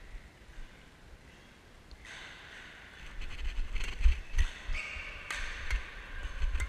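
Rustling and knocking from a body-worn action camera as its wearer moves about a badminton court. Several sharp clicks and low thumps come in the second half, the loudest about two thirds of the way through.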